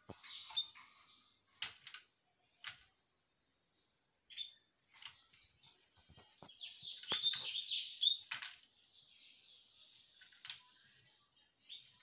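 Caged canaries chirping, with a short burst of quick warbling song about halfway through, amid a few sharp clicks.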